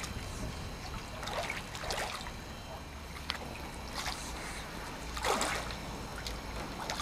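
Water splashing and lapping in short bursts every second or so, the loudest about five seconds in, over a low steady rumble of wind on the microphone.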